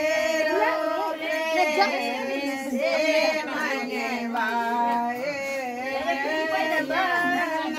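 A group of women singing together, several voices at once, with long held notes.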